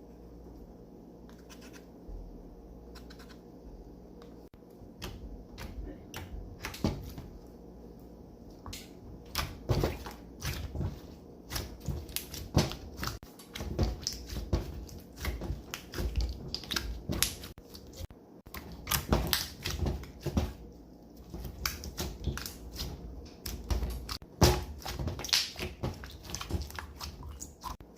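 Slime being squished and kneaded by hand, making quick sticky clicks and pops. The clicking is sparse at first and becomes dense and irregular from about five seconds in.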